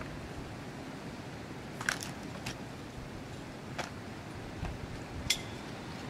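Scattered sharp metallic clinks, about six, from a tree climber's harness hardware and the idle chainsaw hanging from it as he climbs, over a steady background hiss.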